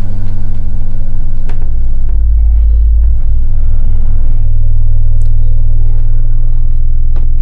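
Ported F7 subwoofer playing a pure sine tone from an online tone generator while the frequency is slowly raised from about 12 Hz toward 20 Hz: a loud, steady low rumble that swells for a few seconds in the middle. The sweep is approaching the box's port tuning, where the tone begins to register as bass.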